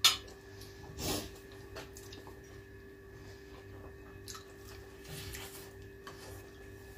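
Faint close-up eating sounds: wet chewing and small clicks as a fork picks meat off a roast duck, with a short sharp smack about a second in, over a steady low hum.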